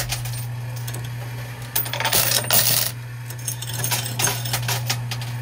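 Metal coins clattering and clinking in a coin pusher machine: a dense rush of them about two seconds in and a smaller flurry around four seconds, over a steady low hum.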